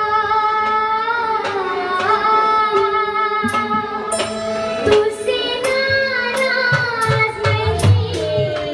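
A boy singing a Nepali dohori folk song into a microphone, holding long notes with wavering ornaments. Tabla drum strokes come in near the end.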